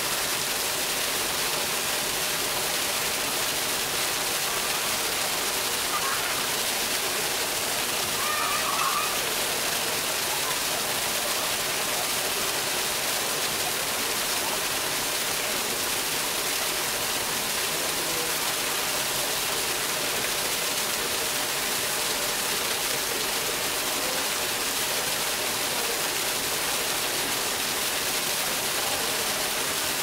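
Water from a small artificial waterfall falling in a narrow column and splashing into its pool, a steady, even rush.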